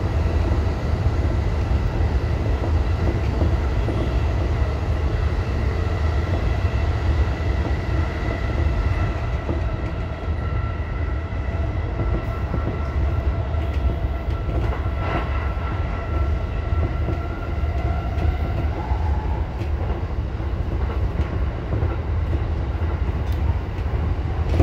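Inside an E233-series Keihin-Tohoku Line electric train running between stations: a steady low rumble of wheels on rail with a constant whine over it, and a few faint clicks.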